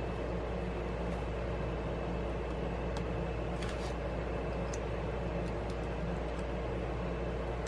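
A steady machine hum, with a few faint, light ticks as thin plastic picks are worked in under the edge of an iPad Pro's glass screen.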